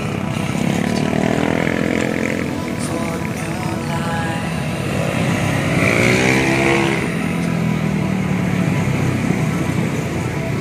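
Scooters and small motorcycles riding past through a bend, their engine notes rising and falling in pitch as each goes by, with two clear pass-bys, one early and one about halfway through.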